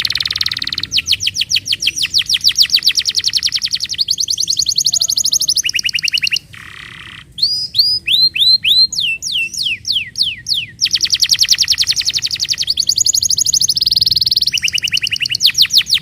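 Domestic canary singing a run of rapid trills of repeated high notes, switching to a new trill every second or two. In the middle comes a short, softer buzzy note, then a stretch of slower notes that each sweep downward, before the fast trills return.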